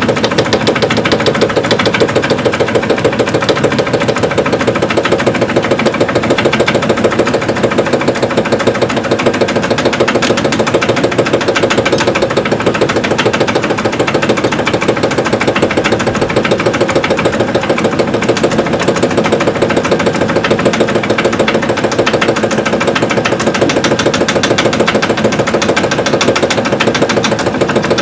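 Evrika-3M semi-automatic washing machine spinning its stainless-steel drum, with a rapid, steady knocking that does not let up. The knock comes from the drum bearing and is the sign of a worn bearing.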